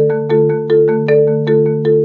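Concert marimba played with four yarn mallets, a steady flowing pattern of about five struck notes a second over ringing lower notes.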